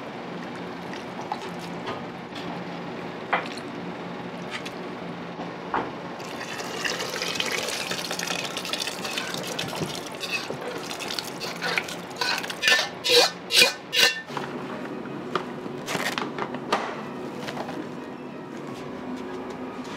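A thick red minced-meat sauce being stirred with a metal ladle in a wok, then poured and scraped from the wok into a stainless steel pot, with a run of four loud ladle scrapes about two-thirds of the way through. A steady kitchen hum runs underneath.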